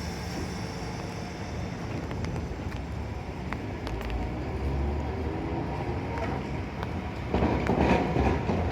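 A train approaching on the rails with a low rumble that grows steadily louder, then turns suddenly louder and fuller about seven seconds in as it reaches the crossing.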